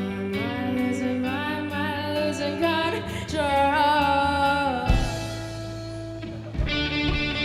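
Live rock band playing a song: a singer carries a sliding, wavering sung line over guitar and bass for about five seconds, then the instruments carry on alone, and the guitars come back in louder near the end.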